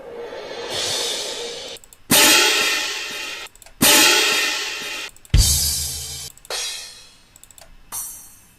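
Cymbal samples played one after another. First a cymbal swell rises over about two seconds, then comes a string of cymbal crashes, each starting sharply and dying away over a second or so. The crash about halfway through has a low drum hit under it.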